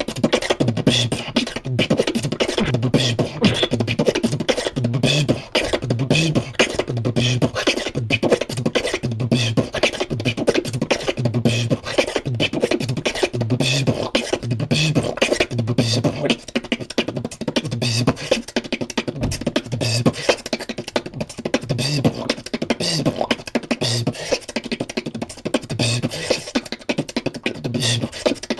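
Beatboxing: a fast, dense stream of mouth clicks and snare-like hits over a vocal bass line that pulses about once a second.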